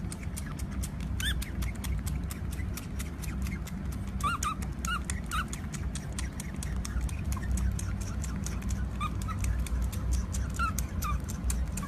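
Otter pup drinking from a baby bottle: a rapid run of small wet clicks from its sucking, with short high squeaks in little clusters now and then.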